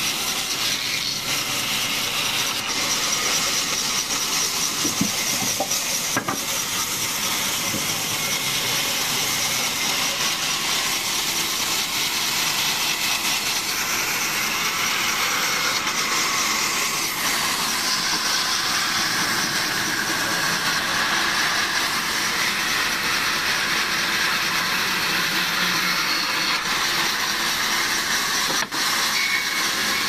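Sawmill band saw running and ripping lengthwise through a fresh wooden log: a steady hiss of the blade cutting through wood, with the machine's hum beneath it.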